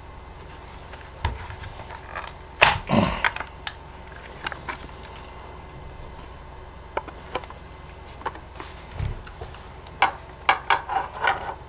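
Silicone-sealed plastic case of a Vexilar 9Ah lithium battery being pried apart and its cell pack slid out. A louder crackling scrape comes about three seconds in, then scattered clicks and knocks of plastic being handled.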